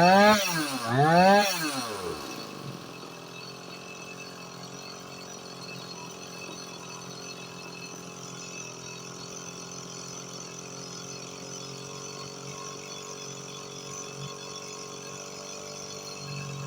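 Stihl MS 180 two-stroke chainsaw revved up and down twice, then settling into a steady idle, being test-run after repair and reassembly.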